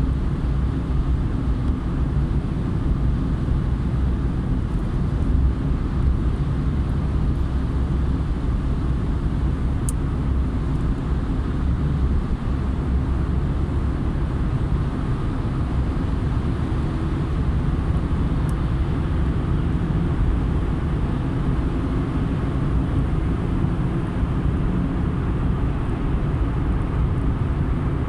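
Steady low rumble of a car driving on a wet city highway: engine and tyre noise with no sudden events.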